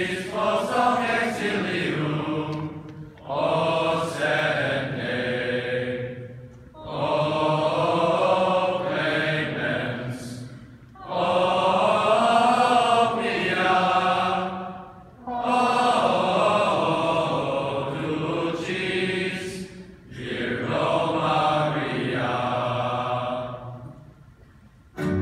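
A large chorus of young men's voices singing together in unison, in phrases of three to four seconds with short breaks between.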